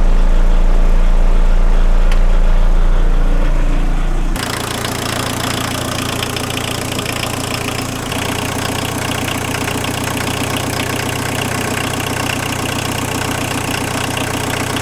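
A VW 1.6L turbodiesel engine running at idle with diesel clatter. For the first four seconds a louder, deeper steady drone sits over it, then it changes abruptly to the plain idle.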